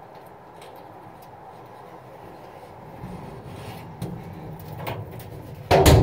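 Freshly lubricated metal hinge being worked back and forth, turning with a low rubbing sound and a few light clicks and no squeal. A sudden loud sound comes in near the end.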